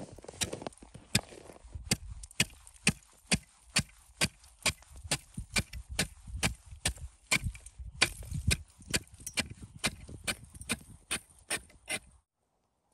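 A steady run of sharp knocks or strikes, a little over two a second, that cuts off suddenly near the end.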